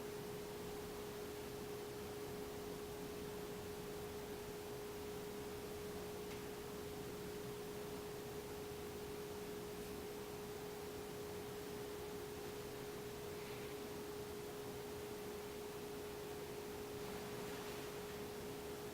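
A steady, unchanging single-pitch hum, a mid-low tone, over faint room hiss.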